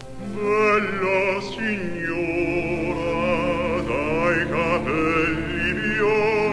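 Operatic bass-baritone singing with a wide vibrato over a string orchestra. The voice comes in about half a second in. This is an old cassette-tape recording.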